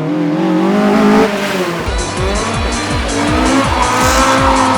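Toyota AE86 engine revving, its pitch climbing for about a second. About two seconds in, it gives way to background music with a heavy, steady bass beat.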